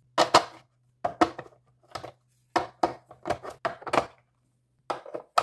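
Hard plastic grooming-vacuum attachments clacking onto the pegs of a plastic storage stand: about a dozen sharp clicks and knocks in quick, uneven succession.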